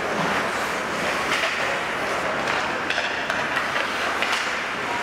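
Ice hockey play: skates scraping on the ice under a steady wash of rink noise, with several sharp knocks of sticks and puck.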